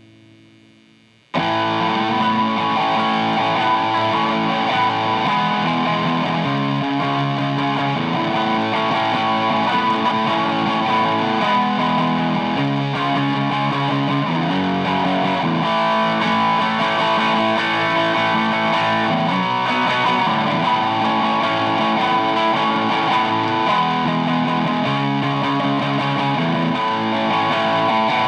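Electric guitar played through a DOD Juice Box FX51 overdrive, with a DOD Bifet Boost 410 also switched on, strumming sustained distorted chords that change every second or two. After a faint fading note, the playing starts abruptly about a second and a half in.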